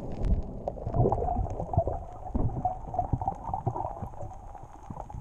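Muffled underwater rushing and gurgling of water past a submerged camera as a freediver descends onto a reef, with many small pops and clicks.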